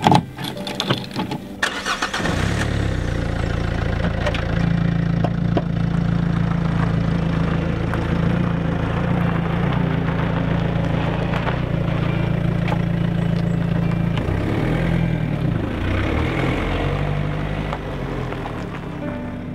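Clicks and knocks of a key in a car door lock and the door, then a Renault Clio's engine starts about two seconds in and idles steadily. Near the end the engine note changes as the car pulls away, and the sound eases off.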